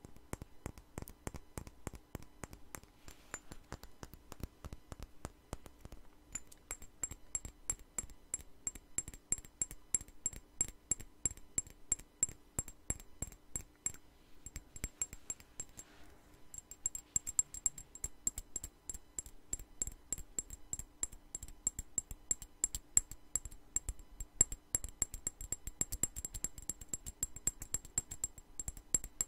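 Fingernails tapping fast on a glass perfume bottle close to the microphone, many taps a second. A high glassy ring joins the taps about six seconds in and grows stronger in the second half.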